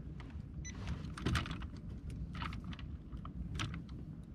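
Irregular light clicks and taps of gloved hands handling fishing tackle, over a steady low rumble of wind and water.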